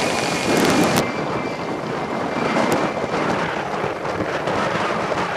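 Helicopter in flight overhead: a steady rush of rotor and engine noise, with wind buffeting the microphone.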